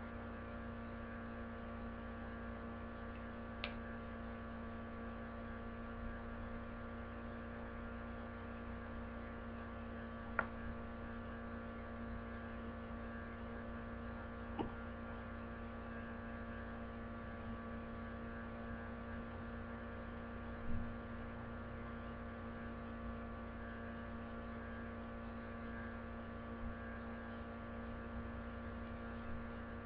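Steady electrical hum on the recording, with a few brief clicks and taps scattered through it.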